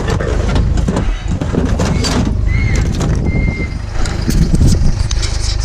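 Clattering and knocking of discarded electronics being moved and handled in a scrap pile, many short irregular knocks over a steady low rumble.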